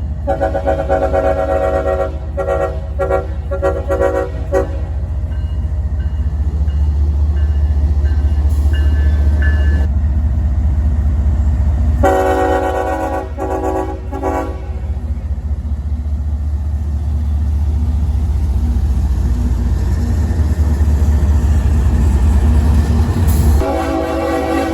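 Diesel locomotive's multi-chime air horn sounding a run of short blasts, then another blast about twelve seconds in and again near the end. A heavy, steady rumble from the passing train runs underneath.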